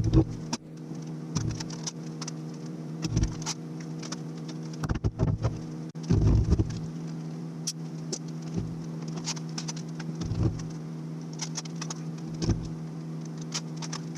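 Pieces of wood knocking and clattering against each other every second or two, with sharp clicks between, over a steady low machine hum.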